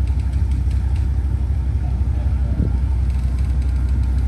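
Steady low rumble of a large motor yacht's engines running at low power while it manoeuvres to dock.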